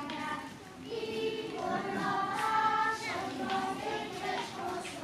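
Young children singing together in chorus, with a short break between phrases under a second in.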